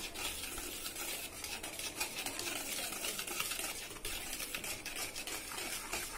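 Metal wire whisk stirring dry flour mix in a plastic bowl: a continuous fast scratchy rustle full of quick light ticks.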